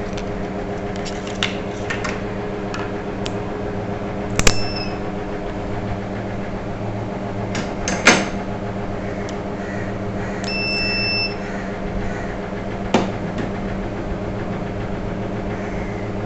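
Steady electrical hum with a few sharp metallic clicks as a cable lug, washer and nut are handled on a lead-acid battery terminal. A short electronic beep sounds a little past the middle.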